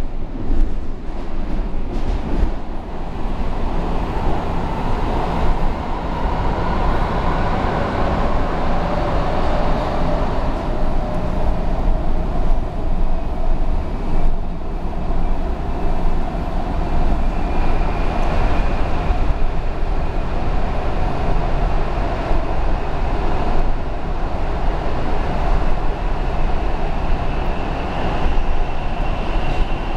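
Washington Metro railcar running between stations: a steady rumble of steel wheels on rail with the car's motor whine, which slowly climbs in pitch over the second half.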